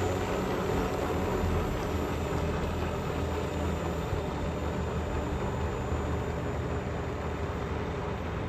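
Modified Power Wheels ride-on car driving, its electric motors and gearboxes whirring steadily over the noise of its tyres on the ground.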